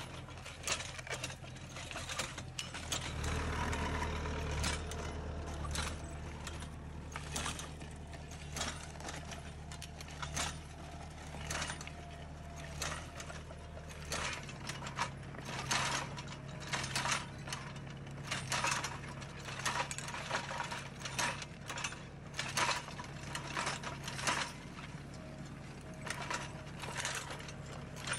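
Tractor engine running steadily while a tractor-mounted sensor-arm vineyard hoe with a three-disc attachment works the soil, its metal frame and discs clattering and clicking irregularly. The engine hum grows louder about 3 seconds in and drops back about 14 seconds in.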